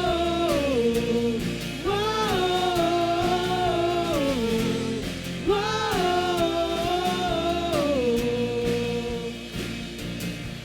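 Live worship band music between sung lines of a praise song. Over the band, a lead melody holds three long notes, each swelling in and sliding down at its end. The music eases off a little near the end.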